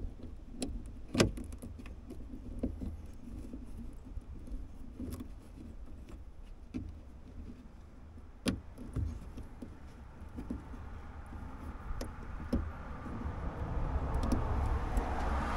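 Small metallic clicks and rattles of a thin steel cable being worked by hand into the opener latch of a Scania toolbox lid, over a steady low rumble. A louder rushing noise builds over the last few seconds.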